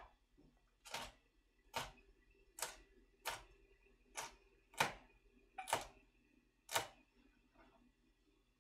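Chef's knife slicing a green chili pepper on a plastic cutting board: about eight separate knife taps on the board, roughly one every 0.8 s.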